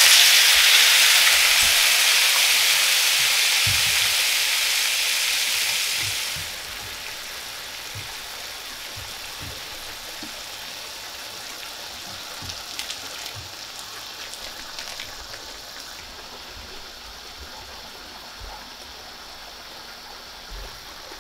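Coca-Cola hitting a hot pan of glazed chicken drumsticks sizzles loudly, fading over the first six seconds. It then drops suddenly to a quieter bubbling simmer with occasional small pops as the drumsticks braise in the cola and water.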